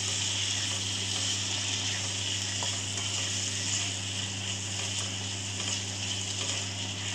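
Bell peppers, onions and cashews sizzling steadily in sauce in a stainless steel kadhai while being stir-fried with a wooden spatula. A steady low hum runs underneath.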